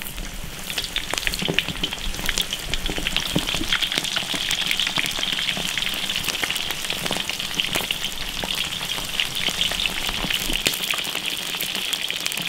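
Starch-coated bullfrog pieces deep-frying in hot oil in an iron wok: a steady sizzle with constant sharp crackles and pops as more pieces are dropped in by hand.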